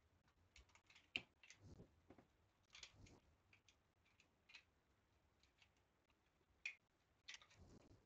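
Faint, irregular clicks and scrapes of small wooden model-kit parts being handled and trimmed by hand. The sharpest clicks come about a second in and twice near the end.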